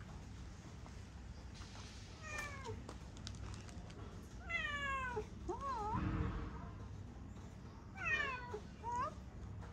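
Domestic cat meowing: about five meows, most falling in pitch, one wavering and a short rising one near the end. A brief low rumble just after the middle.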